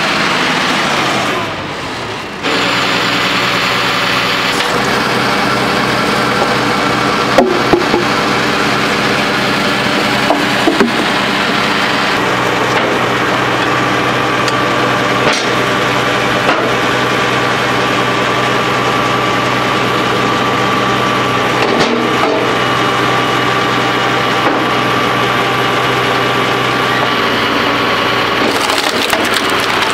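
Case 956 XL tractor's six-cylinder diesel engine running steadily, driving a Binderberger Gigant 30 Z wood splitter, with a few sharp knocks of logs being handled.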